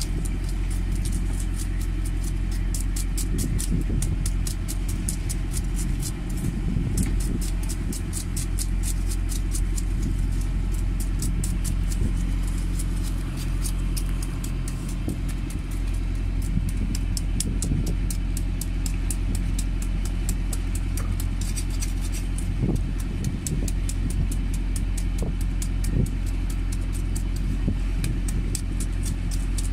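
An engine running steadily, with a low rumble and fast, even ticking. A few short knocks sound in the second half.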